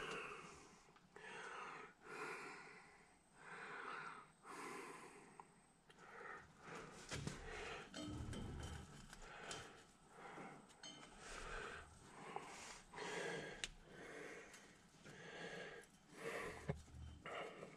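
A man breathing in a steady rhythm, audible breaths about once a second, with a few faint clicks.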